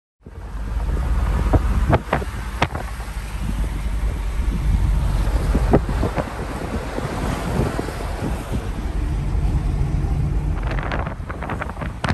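Wind buffeting the microphone with a steady low road and engine rumble from a moving car, recorded from inside the car, with a few sharp knocks in the first few seconds.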